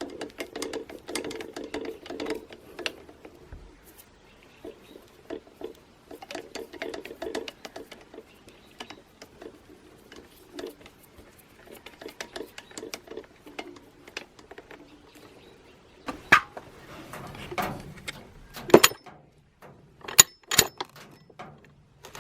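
Hand work on small metal transmission parts: irregular clicking, tapping and light rattling, with a few sharper knocks near the end.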